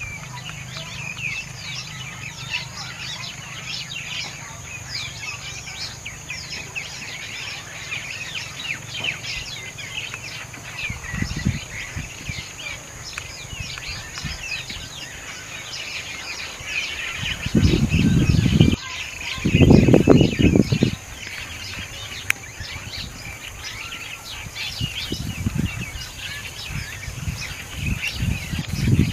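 Many small birds chirping and twittering continuously over a steady high-pitched tone. More than halfway through, two loud low rumbling bursts of a second or so each break in.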